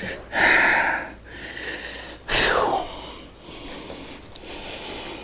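A man's heavy breathing from exertion: two loud, forceful exhales, the second falling off like a sigh, with quieter breathing between.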